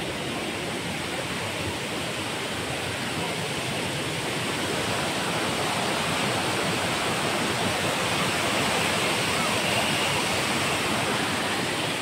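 Steady rush of a waterfall cascading over rocks, growing a little louder partway through.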